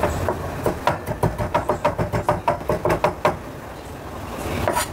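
Chef's knife mincing garlic on an end-grain wooden cutting board: rapid knocks of the blade on the wood, about five a second, stopping about three seconds in, with one more knock near the end.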